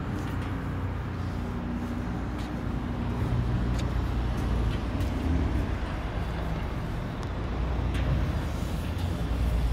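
FAAC sliding-gate operator running, driving the steel gate along its track: a steady low motor hum and rumble, with a few light clicks.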